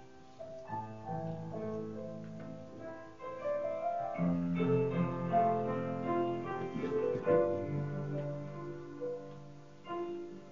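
Piano playing slow chords and a melody over held bass notes, growing louder about four seconds in and softening near the end.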